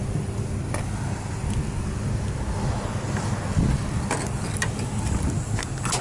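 A few light clicks as the tailgate handle of a Ford F-150 pickup is pulled and worked: one under a second in and two more around four seconds in, over a steady low rumble.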